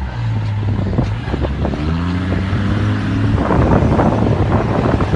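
Vehicle engine running, then revving up with a rising pitch about two seconds in. Wind buffets the microphone from about three and a half seconds in.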